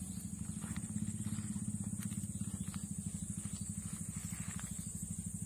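A small engine running steadily at idle, a fast even low pulse, with a steady high-pitched hiss over it.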